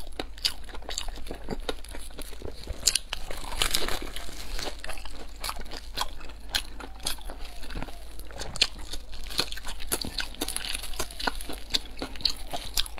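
Crunching bites and chewing of a crispy pan-fried flatbread with a meat filling, with the crisp crust crackling as it is torn apart by hand. Dense, irregular crunches and crackles with no pauses.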